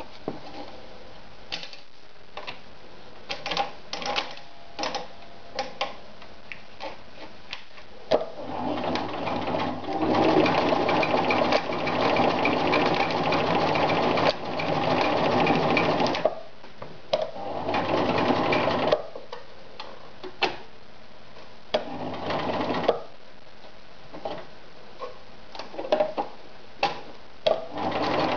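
Riccar 1300 sewing machine stitching through folded denim in several runs: a long run of about eight seconds, then shorter runs of a couple of seconds each. Before the first run and between runs there are scattered sharp clicks and knocks.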